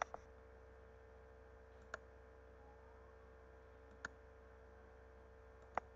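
Computer mouse clicks: a quick double click at the start, then single clicks about two, four and near six seconds in, over a faint steady electrical hum.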